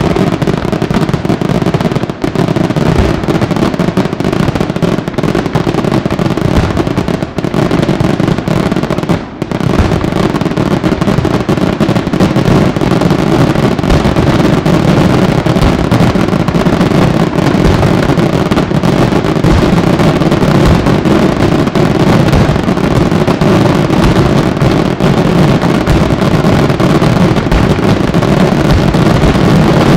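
Aerial fireworks going off in a dense, continuous barrage: shell bursts and crackle run together into an unbroken stream of reports. There is a brief lull a little after nine seconds, and the barrage is slightly louder after it.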